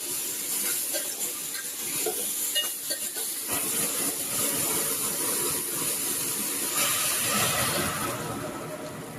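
Chopped vegetable stalks and spices sizzling and hissing in hot oil in a pressure cooker, with a few light clicks of stirring in the first few seconds. The hiss fades near the end.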